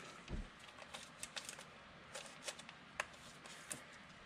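Faint handling of football trading cards and hard plastic card holders: a soft knock just after the start as a cased card is set down, then scattered light clicks and rustles.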